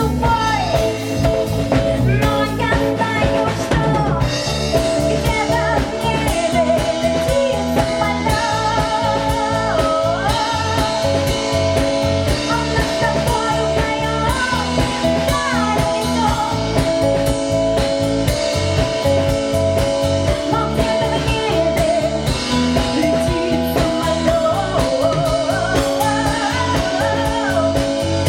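A rock band playing live, with drum kit and guitar keeping a steady beat and a melody line bending and wavering in pitch over it.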